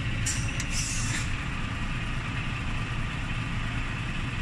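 Volvo FH460 truck's 13-litre six-cylinder diesel running steadily, heard from inside the cab. A brief hiss comes in two short parts within the first second or so.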